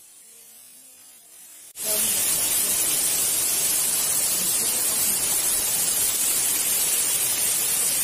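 Waterfall: a loud, steady rush of falling water that cuts in suddenly about two seconds in, after a short stretch of faint quiet.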